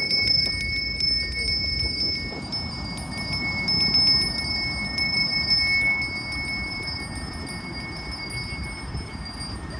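A small bell rung steadily, its high ringing held throughout, with quick repeated strikes in the first couple of seconds, over a steady low rumble.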